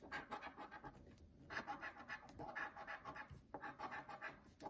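Faint, rapid scratching of the coating being scraped off a scratch-off lottery ticket, in three runs with short pauses between.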